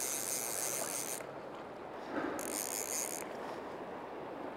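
Fly reel drag buzzing as line is pulled off by a running coho salmon. It runs for about the first second, stops, then buzzes again briefly about two and a half seconds in. Steady river rush lies underneath.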